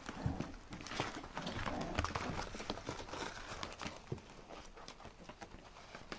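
Puppies scuffling at play, their paws and claws scrabbling and clicking on the floor and blanket in many quick clicks and knocks, busier in the first few seconds and quieter toward the end.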